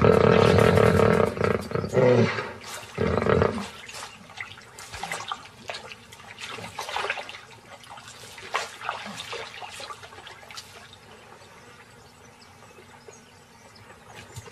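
An animal calling loudly in three pitched calls over the first few seconds: a long one, a short one, then another. After that come quieter splashing and water sounds.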